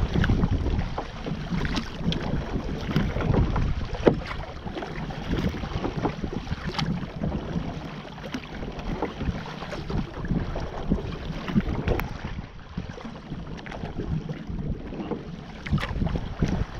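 Kayak paddle dipping and splashing in calm water with irregular strokes, water lapping at the hull, and wind buffeting the microphone.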